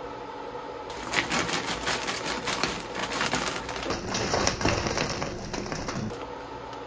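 Rapid clicking and crackling for about three seconds. Then frozen green peas are poured from a plastic bag into a pan of cream sauce, rattling and splashing in.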